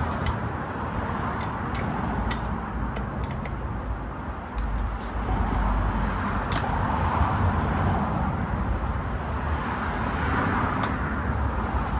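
Steady outdoor background rumble, like distant traffic or wind on the microphone, with a few brief, sharp clicks scattered through it, a little louder from about halfway in.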